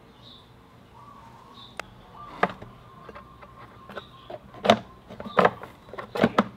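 Irregular knocks and clicks of hands handling metal bolts and plastic parts on a scooter's rear swingarm, growing louder, with the sharpest knocks in the last couple of seconds. Faint bird chirps are heard in the first second.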